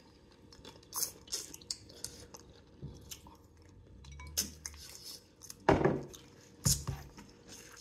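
Close-up eating sounds: crab meat chewed with wet lip smacks and sauce sucked off the fingers, with many small sharp clicks throughout and two louder knocks in the last couple of seconds.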